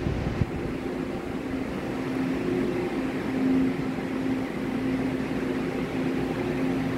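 Steady mechanical hum and rumble on a railway station platform, with a faint low tone that fades in and out.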